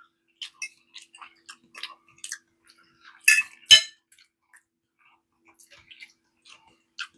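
Cutlery clinking against dishes in scattered faint clicks, with two sharper clinks close together a little over three seconds in.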